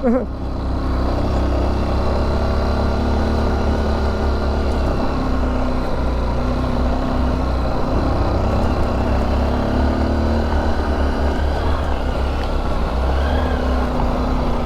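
Single-cylinder Honda XR trail motorcycle engine running steadily under load up a dirt-road climb, its pitch shifting a little now and then, with wind rumbling on the microphone.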